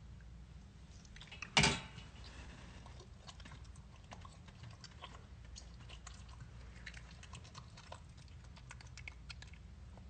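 Capuchin monkey chewing grapes: a run of small clicking chewing noises, with one loud, short noise about one and a half seconds in.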